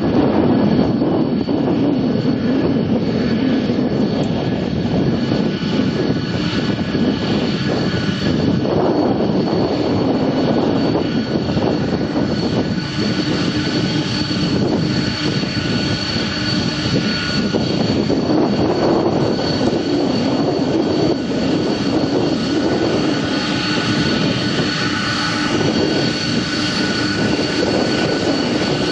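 Boeing 747-400F freighter's four turbofan jet engines running at high power for takeoff, a loud steady noise with high whining fan tones running through it.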